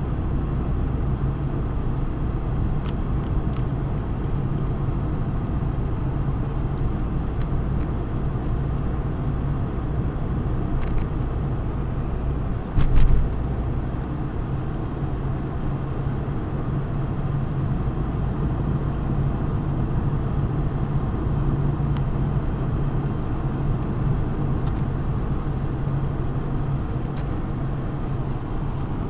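A car driving, heard from inside the cabin: a steady low engine hum and road noise, with a few faint clicks and one louder thump about 13 seconds in.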